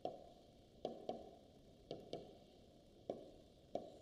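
Faint pen taps on an interactive smart-board screen while writing by hand: about seven sharp taps, some in quick pairs.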